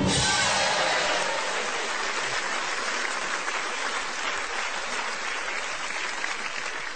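Studio audience applauding, starting suddenly and slowly dying away.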